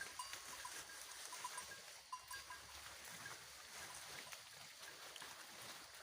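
Faint sounds of goats feeding on cut leafy branches: small ticks and rustling, with short high pips repeating at a couple of fixed pitches.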